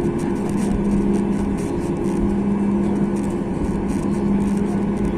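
Boeing 737 MAX 8's CFM LEAP-1B jet engines running, heard from inside the passenger cabin: a steady drone with two low hums over a broad rumble.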